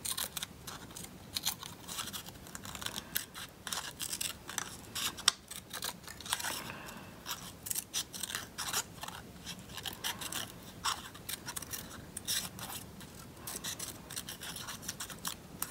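Small scissors snipping through a strip of thin paper in many short, quick cuts, cutting out a zigzag edge.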